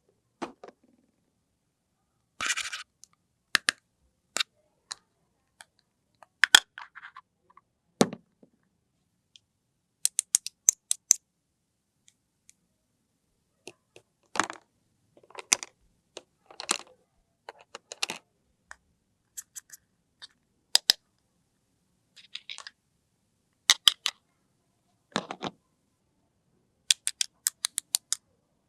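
Pieces of a toy picnic play set being handled, with sharp clicks and taps, some in quick runs of several ticks, and a few short rustles, separated by silence.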